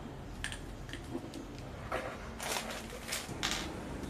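A string of short scrapes and rustles, the loudest three close together near the end, over a steady low hum: hands working wire and paper while winding a coil for a homemade welding transformer.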